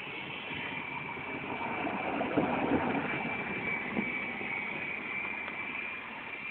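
Radio-controlled helicopter in flight: a steady high whine from its motor and rotors, growing louder about two to three seconds in and then easing back.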